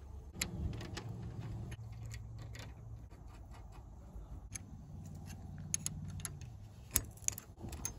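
Small metal clicks and clinks of wire rope clips, nuts and an open-end wrench being handled and tightened on steel winch cable, with a few sharper clicks near the end.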